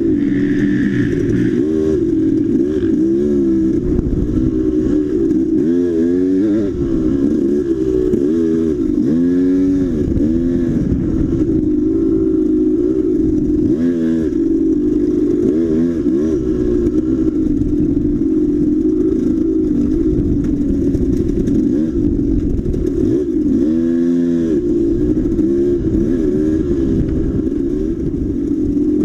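Dirt bike engine running hard, its pitch rising and falling over and over as the throttle is worked. The swings come several in quick succession about a third of the way in, and again near the end.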